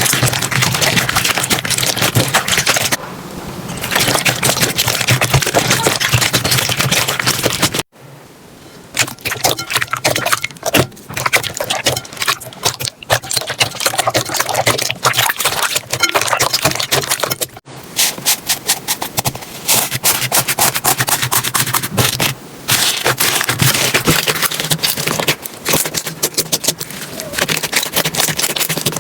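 Slime being squeezed, poked and stretched by hand, giving a dense run of wet clicks and crackles. The sound breaks off sharply twice, about 8 and 17 seconds in, and picks up again with a slightly different texture.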